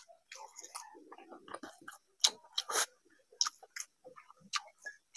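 Close-miked chewing of soft food, heard as irregular wet mouth clicks and lip smacks.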